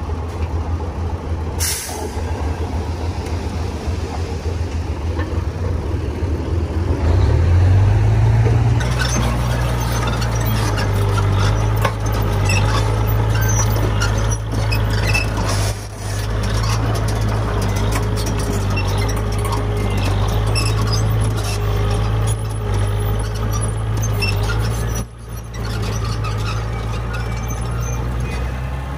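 Heavy diesel earthmoving machinery running: the engine drones low, then revs up about seven seconds in and holds there under load. Metallic clanking and a wavering whine run over it, with a short sharp sound near the start.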